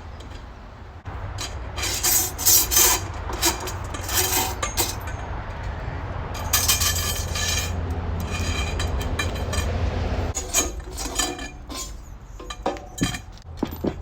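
Steel parts of a vintage weight bench clinking and clanking as the bench is taken apart, in irregular knocks and rattles over a steady low rumble.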